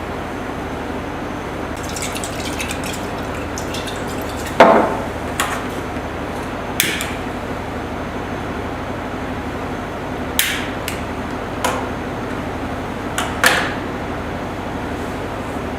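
A series of sharp, separate clinks and knocks, the loudest about four and a half seconds in, over a steady low hum, with faint rapid ticking around two to four seconds in.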